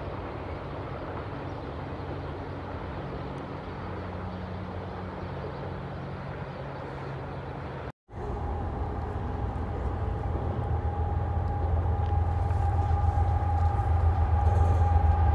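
Train rolling past at a distance, a steady rumble. After a short break, an approaching train, its low rumble growing steadily louder with a steady high tone over it.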